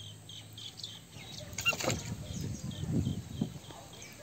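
Low knocks and rubbing from a floating plastic drum as the person sitting in it shifts her weight, with one brief squeak about a second and a half in. A small bird keeps chirping, about three or four short chirps a second.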